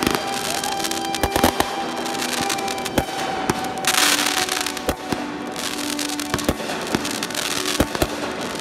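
Consumer aerial fireworks going off: a string of sharp bangs and crackles from shells bursting, with a loud hissing rush about four seconds in.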